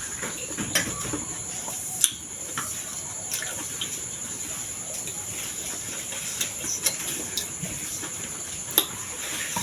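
A person eating, with about six short sharp clicks spread out over a steady background hiss.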